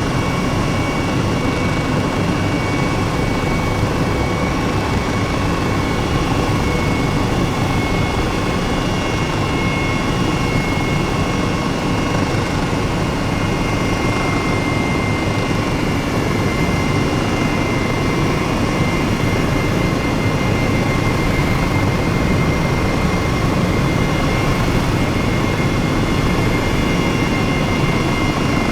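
Steady engine drone over a loud rushing noise, with several constant whining tones and no change in pitch or level.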